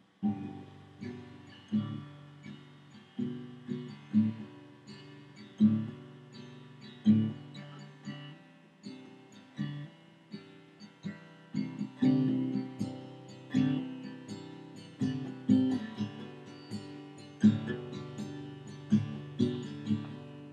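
Acoustic guitar music: plucked notes and strummed chords that ring out, with a strong picked accent about every second and a half. It comes in suddenly out of silence right at the start.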